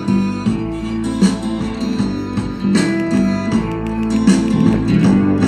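A guitar-led song with a steady beat, played from a phone over Bluetooth through a homemade four-channel TDA7850 amplifier and its speakers.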